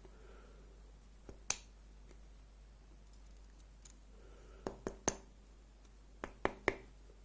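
Small sharp clicks of metal lock parts being handled: a pair about a second and a half in, three more around five seconds, and three more near six and a half seconds.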